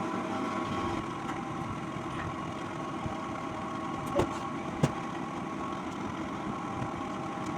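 Steady machine hum with a few faint steady tones, broken by two short clicks about four and five seconds in.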